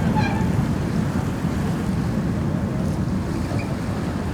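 Steady low rumble of a tour boat under way: its engine and water rushing along the hull, with wind buffeting the microphone.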